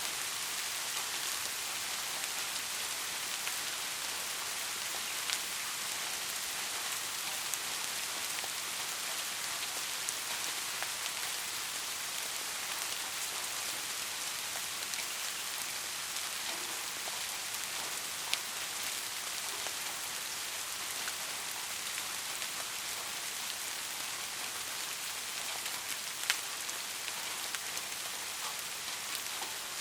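Steady rain falling, an even hiss with a few sharper drop ticks standing out, about 5, 18 and 26 seconds in.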